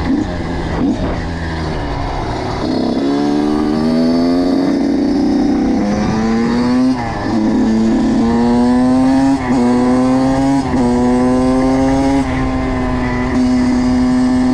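Kawasaki KX85 two-stroke single-cylinder motocross engine accelerating. It runs lower and rougher for the first few seconds, then climbs in pitch through several gear changes, each with a brief dip.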